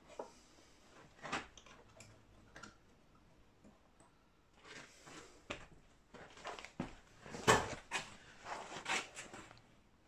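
Tools being handled on a wooden workbench, including a pair of metal wire tongs: a few scattered clicks and knocks, then a busier run of scraping and clinking from about five seconds in, loudest a little past halfway.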